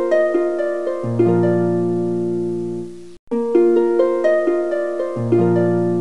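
Background music of plucked-string notes in a short looping phrase, with deeper sustained notes joining about a second in. The music cuts out for a moment just after three seconds, then the same phrase starts again.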